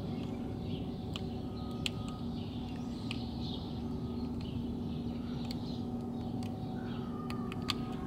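Faint, scattered clicks and scrapes of a kitchen knife shaving at a plastic car door-lock part to widen a hole in it, over a steady low background hum.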